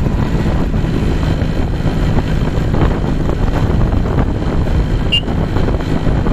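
Suzuki X4 motorcycle engine running steadily at road speed, mixed with wind rushing over the handlebar-mounted microphone. A brief high chirp sounds about five seconds in.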